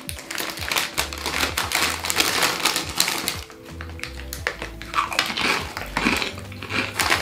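A foil crisp packet rustling as it is opened, then Lay's cheeseburger-flavour potato crisps being crunched and chewed in dense sharp crackles. Background music with a steady, pulsing bass line runs underneath.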